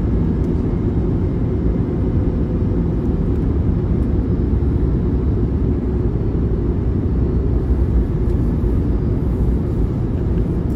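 Steady low rumble of engine and airflow inside the cabin of an Airbus A321neo on approach to land, heard beside its Pratt & Whitney PW1100G geared turbofan.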